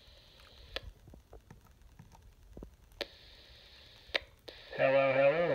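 Two-way radio reception on an FRS channel: short bursts of squelch static hiss, each opened and closed by a click as the transmitting walkie-talkie keys up and unkeys. Near the end a carrier opens again and a voice comes through loudly.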